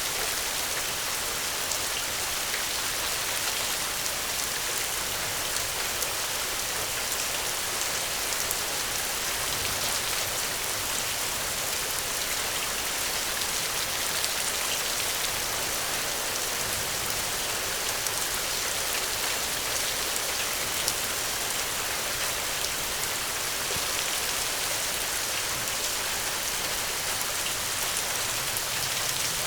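Steady rain falling on a surface, a dense, even hiss of many fine drops with small individual drop ticks.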